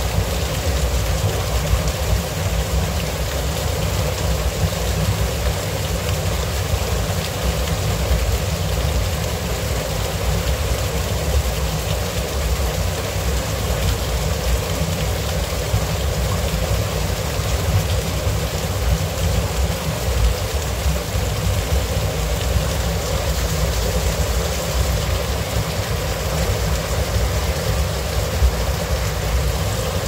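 Water trickling and dripping from a mossy rock ledge, splashing steadily onto wet leaves and stones, over a steady low rumble.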